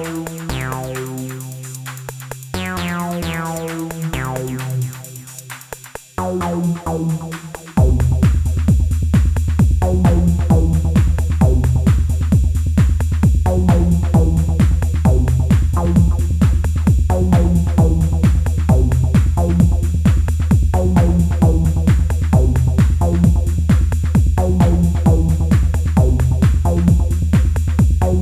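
Elektron Analog Rytm drum machine playing improvised techno. Broken, repeating pitched stabs give way about eight seconds in to a steady, heavy kick-and-bass pulse that runs under the repeating pattern.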